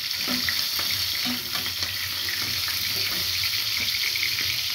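Food frying and sizzling in a pan on a gas stove, steady, with small scrapes and taps of a metal spatula as the pan is stirred.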